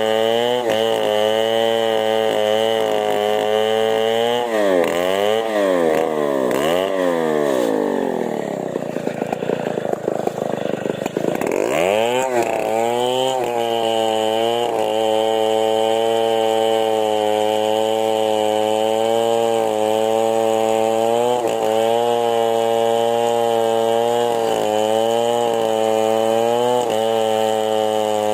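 Chainsaw engine running at high revs. About five seconds in it revs down and up twice, then its speed sags for a few seconds before climbing back and holding steady to the end.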